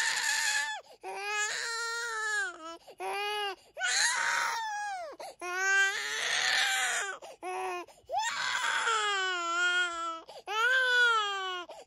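A 10-month-old baby crying inconsolably. It is a string of wailing cries, each lasting about a second, with short breaks between them, and it carries on even while he is being soothed.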